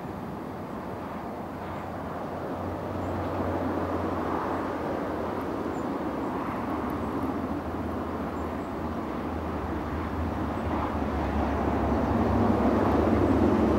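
Class 156 diesel multiple unit pulling away, its underfloor diesel engines giving a steady low hum over a noisy spread of sound that grows louder near the end.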